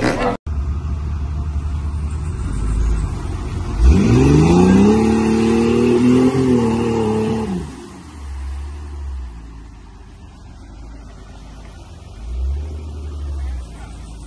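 Off-road 4x4's engine revving as it drives through mud. The pitch climbs about four seconds in, holds for a few seconds, then drops away to a lower engine rumble that swells twice more.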